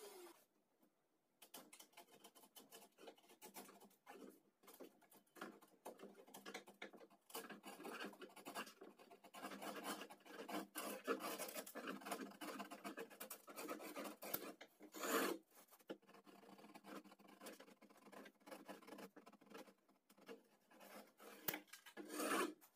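Wood chisel paring a groove in a laminated board by hand, irregular scraping and scratching strokes as shavings are cut away. One stroke about two-thirds through and another just before the end are louder.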